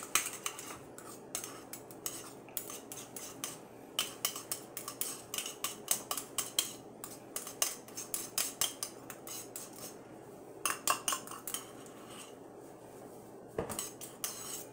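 Wire potato masher mashing boiled potatoes in a plastic bowl: quick, irregular clicks and knocks of the metal masher against the bowl, with a couple of short pauses in the later part.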